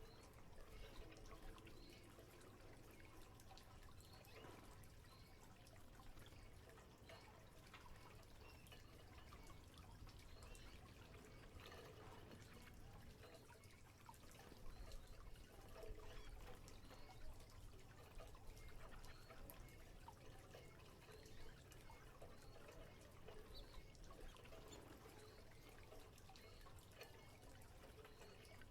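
Faint splashing, trickling and dripping of water from canaries bathing, in small irregular ticks and patters with a few slightly louder flurries.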